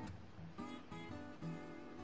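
Background music: a light ukulele tune, plucked and strummed notes.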